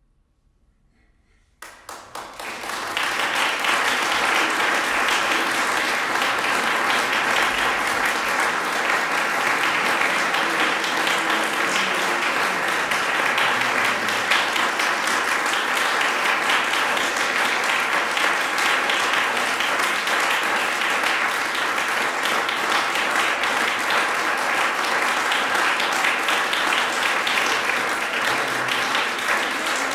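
Near silence for about a second and a half, then an audience bursts into applause: a few separate claps that within a second build into steady, dense clapping from a large crowd.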